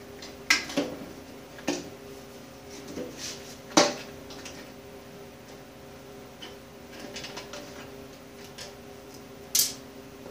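Scattered sharp metal clicks and clinks of hand tools and screws as the Allen head screws holding the lower wheel door of an older Delta bandsaw are worked loose and the door is handled. The loudest clink comes about four seconds in, another near the end, over a steady low hum.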